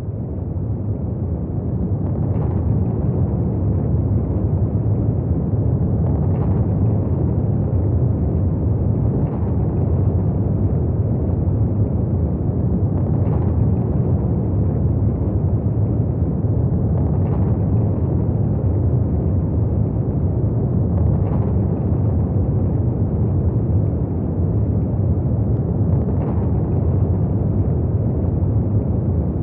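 A steady, deep rumbling noise that swells in at the start and then holds even, with a faint tick about every four seconds.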